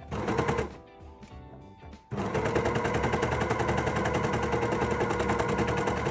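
Overlocker stitching a seam at speed: a rapid, even clatter that starts suddenly about two seconds in and runs steadily, after a brief burst at the start. Quiet background music plays under the opening seconds.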